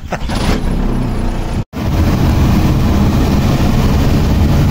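Engine of a lifted, custom-built LuAZ off-road vehicle running as it drives off, with a steady engine and road-noise hum. The sound cuts out for an instant a little under two seconds in, then goes on steady and slightly louder.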